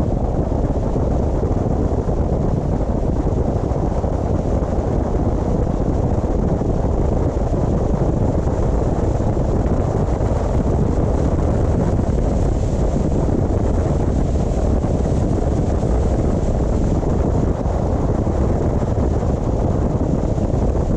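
Steady low rumble of a car on the move: road, engine and wind noise, even throughout.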